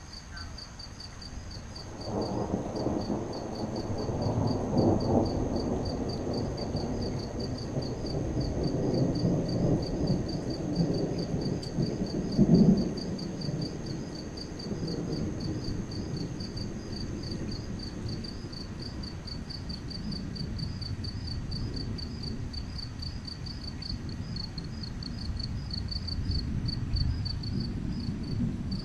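Thunder rumbling. It starts suddenly about two seconds in, has a louder peak about twelve seconds in, and then fades slowly. Crickets chirp in a steady pulsing chorus underneath.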